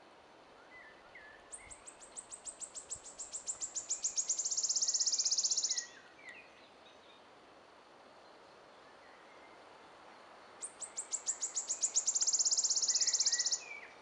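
A songbird sings twice, about nine seconds apart. Each song is a run of high, thin notes that speed up and grow louder, running into a fast trill that cuts off abruptly. Other birds call faintly in between.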